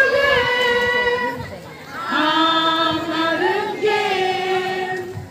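A group of voices singing in unison in long held notes, in two phrases with a short break about two seconds in. The second phrase steps up in pitch.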